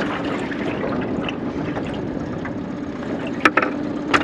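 Small Tohatsu outboard motor idling steadily while trolling, with water splashing and trickling around the boat. Two sharp knocks come near the end.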